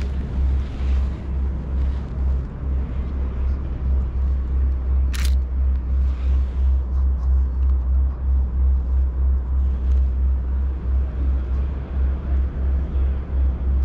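Gusty wind rumbling on the microphone. About five seconds in comes a single sharp click from the Nikon Z6's shutter.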